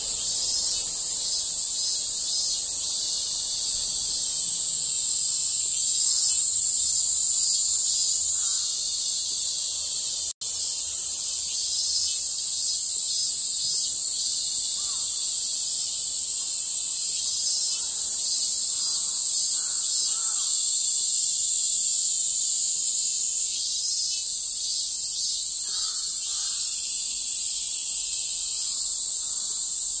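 Loud, steady, high-pitched buzzing of a cicada chorus in summer, with an instant's dropout about ten seconds in.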